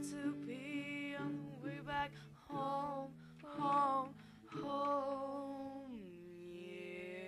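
A female voice singing in short phrases, ending on a long held note near the end, over a steady low accompaniment.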